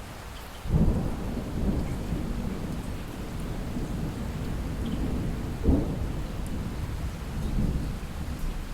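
Distant thunder rolling over light, steady rain: a low rumble breaks in suddenly about a second in and rolls on, with a sharper clap past the middle and another swell near the end.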